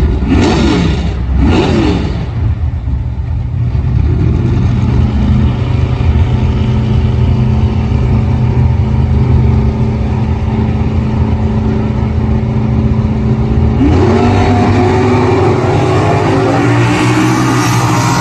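Old muscle-car engines at a drag strip: two quick revs at the starting line, then a steady engine drone while the cars stage. About fourteen seconds in, the engines launch and accelerate hard, their pitch climbing.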